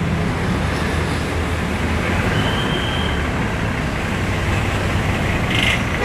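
Tour bus diesel engine idling with a steady low hum.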